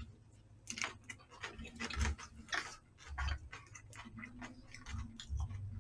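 Eating sounds close to the microphone: irregular clicks and taps of wooden chopsticks against plastic takeout trays as food is picked up, with chewing and a few dull thumps on the table.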